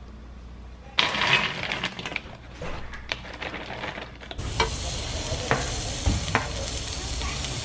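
Gnocchi dropped from a bag into a hot oiled nonstick pan, a sudden sizzle and clatter about a second in that fades with scattered crackles. A little past four seconds the sound changes abruptly to seasoned steaks sizzling steadily on a grill's grates, with occasional pops.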